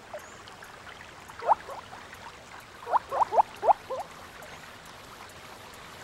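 Gambel's quail calling: short rising call notes, one about a second and a half in, then a quick run of about five a couple of seconds later, over a low steady hiss.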